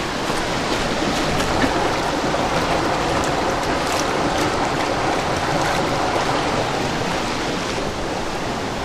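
Creek water rushing steadily over rocks, an even hiss.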